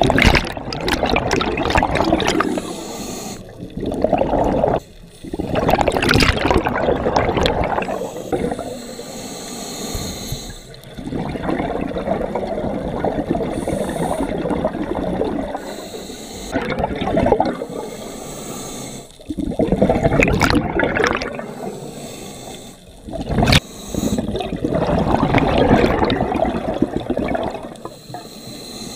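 Scuba regulator breathing heard underwater: bursts of exhaled bubbles rushing past the camera every few seconds, each lasting one to three seconds, with quieter stretches between breaths.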